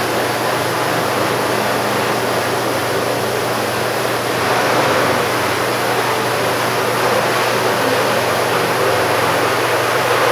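Pressure-washer gun spraying a steady jet of water against a screen-printing screen, washing at the exposed photo emulsion to test how long it holds before breaking down. The hiss of the spray runs continuously, a little louder about halfway through, over a steady low hum.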